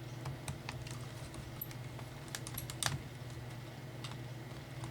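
Irregular small clicks and taps of screwdriver, screws and plastic panels being handled on the underside of a Dell Latitude E6420 laptop, one louder click about three seconds in, over a steady low hum.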